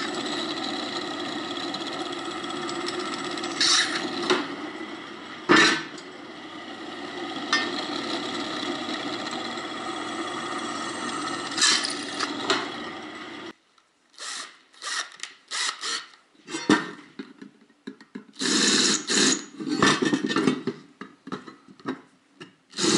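Benchtop drill press motor running steadily while drilling through thin steel plates, with a few short, louder moments as the bit cuts. It stops after about 13 seconds, followed by a series of short on-off bursts from a cordless drill.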